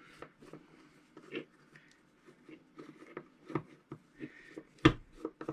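Light scraping and small clicks of a vintage Mitchell 300 spinning reel and its side-cover screws being handled and worked by hand, with one sharper metallic click near the end.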